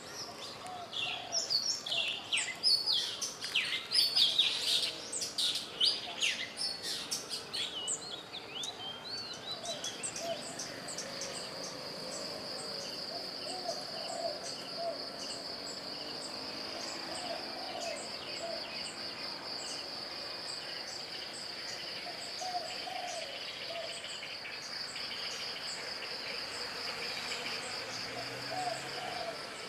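Birds singing and chirping busily for the first several seconds. Then a steady, high, finely pulsing insect trill, like a cicada or cricket, takes over, with short lower calls now and then.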